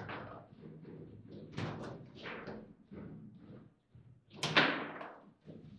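Table football game in play: sharp knocks and bangs of the ball and the rods' figures striking, and rods clacking against the table, irregularly spaced. The loudest bang comes about four and a half seconds in.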